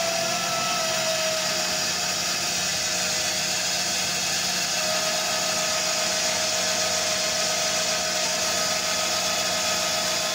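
A separately excited DC motor coupled to a dynamometer, running with a steady whine over a low hum. As the dynamometer load is raised from 0.3 to 0.6 N·m, the whine slides a little lower about a second in and settles there: the motor slowing under the heavier torque.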